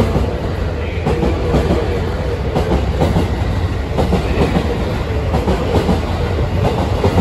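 Twelve-car JR West 225-series and 223-series electric train moving along a station platform: a steady rumble with a run of wheel clacks over the rail joints.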